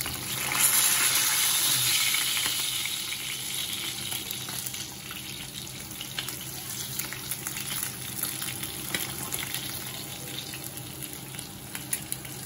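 Tanigue (Spanish mackerel) steaks frying in garlic butter in a pan, a steady sizzle that swells about half a second in and then eases off. A few light clicks sound through it.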